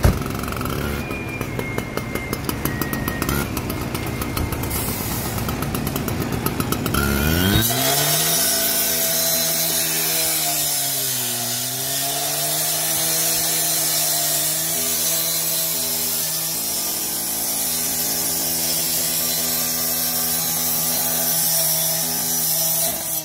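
Petrol-engine cut-off saw cutting through a chained metal gate with an abrasive disc. It runs with a rapid, even pulse at first, then revs up sharply about seven seconds in and holds a loud, steady high-speed run, its pitch dipping briefly as the disc bites into the metal.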